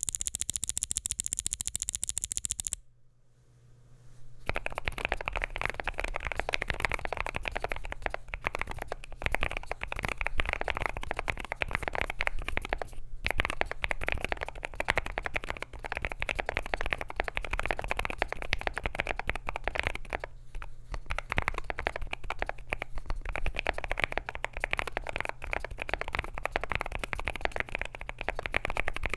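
Continuous typing on an AKKO JIN01 mechanical keyboard with lubed Akko Rosewood linear switches, PBT keycaps on an FR4 plate in a gasket-mounted aluminium case: a dense run of muted key clacks. It opens with a brief burst of very rapid, even clicks, stops for about a second and a half just under three seconds in, then types without a break.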